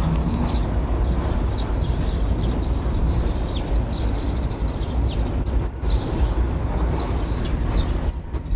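Strong wind rumbling steadily, with small birds giving many short, high, downward-sliding chirps over it.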